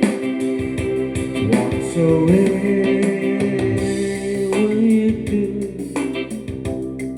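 Music: a sung melody gliding in pitch over sustained instrument tones, with a regular beat.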